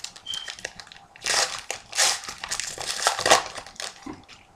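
A trading card pack's wrapper being torn open and crumpled by hand: a run of crinkling and crackling, loudest from about a second in until near the end.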